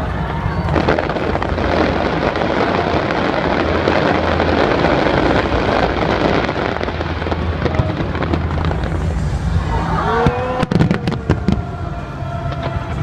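Fireworks: a dense crackling fills most of the stretch, then whistles and a quick cluster of sharp bangs come about ten seconds in.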